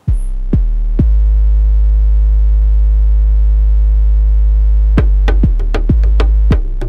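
Electronic intro jingle: a loud, held deep synthesizer note with two drum hits early on, then a quick run of drum hits near the end leading into a beat.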